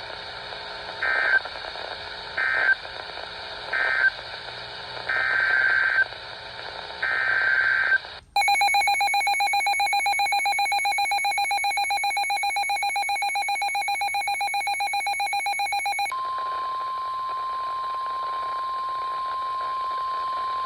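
NOAA Weather Radio alert tones: five short bursts of SAME digital data warble, then a loud, rapidly pulsing electronic alert buzzer for about eight seconds, then the steady 1050 Hz warning alarm tone that announces a new warning.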